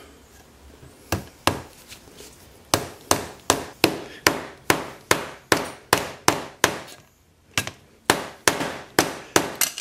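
A plastic-faced soft mallet striking repeatedly, about twenty steady blows at roughly two and a half a second with a short pause about seven seconds in. It is driving a nut on threaded rod into a wooden block.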